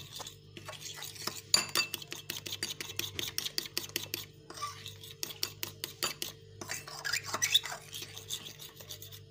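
Egg-white and corn flour batter being mixed in a bowl: rapid, uneven clinks and scrapes of the utensil against the bowl, with a few short pauses.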